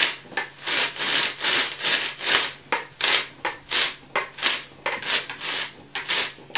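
The rim of an upside-down wine glass being twisted back and forth into a hard styrofoam block, cutting a round hole. It makes a rasping scrape about three times a second.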